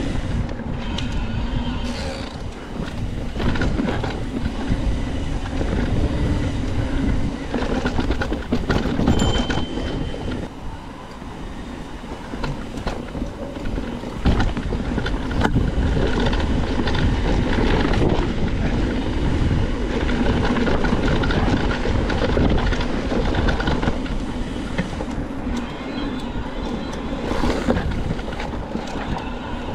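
Mountain bike riding over a dirt trail: a continuous rattling clatter of tyres over rough ground and the bike's chain and frame shaking, with a low rumble, easing slightly about a third of the way through.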